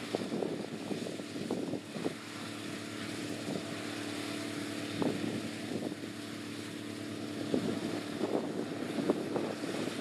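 Gleaner R75 combine harvester running under load as it cuts wheat, a steady engine and machinery drone. Gusts of wind buffet the microphone, mostly at the start and again near the end.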